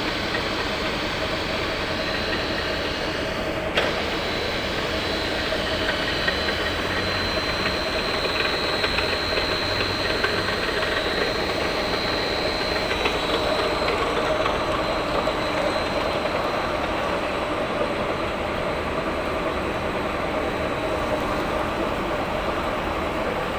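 Wood rotary veneer lathe, driven through an inverter, running steadily with a dense mechanical clatter and a steady high whine that is strongest in the first half. There is a sharp click about four seconds in.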